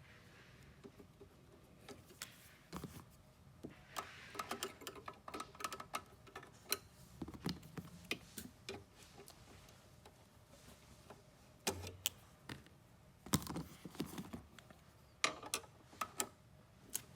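Irregular small clicks, taps and rattles of hand tools and wire connectors as leads are worked into a power supply's terminals, coming in scattered clusters.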